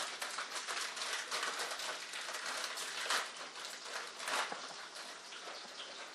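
Bacon frying in a pan: a steady sizzle studded with many small pops and crackles, with a couple of louder crackles about three and four and a half seconds in.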